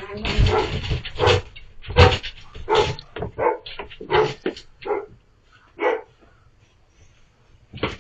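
A dog barking over and over, the barks coming quickly for the first few seconds and then thinning out, the last about six seconds in.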